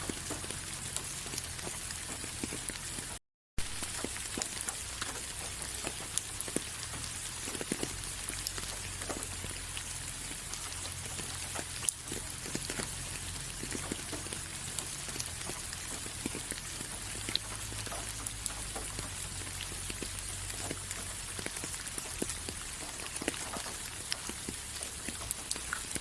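Steady rain, with many separate drops ticking sharply on a surface over an even hiss. The sound cuts out completely for about half a second roughly three seconds in.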